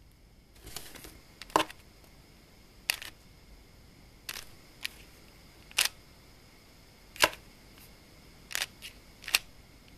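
A 3x3 Rubik's cube's plastic layers being turned one move at a time while an algorithm for placing a last-layer corner is worked through: about ten short, sharp clicks, roughly a second or so apart.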